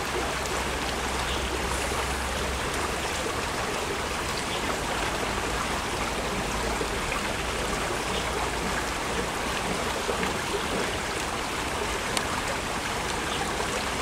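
Water of a shallow rocky stream running steadily over stones.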